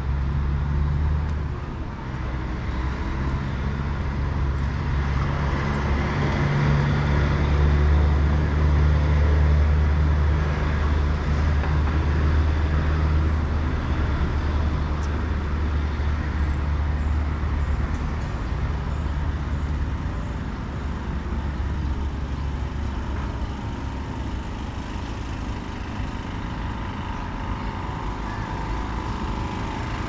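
Street traffic: a vehicle engine's low hum builds to its loudest about eight to twelve seconds in and then fades, over steady road noise.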